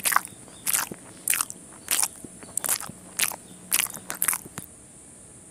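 Close-miked mouth chewing: crisp, crunchy chews about two a second, stopping about four and a half seconds in.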